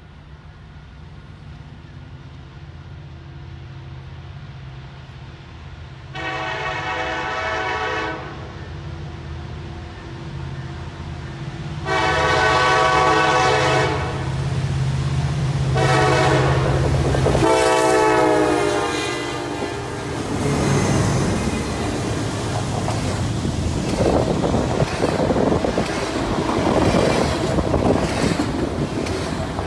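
Double-stack intermodal freight train approaching and passing: the diesel locomotives' rumble builds while the air horn sounds three long blasts, the third bending down in pitch as the lead locomotive goes by. Then the container cars roll past with a steady rush of wheel noise and clicking over the rail joints.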